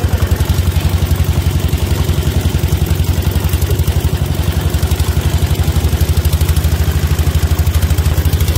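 Small boat's motor running steadily, a rapid even chugging of about ten beats a second.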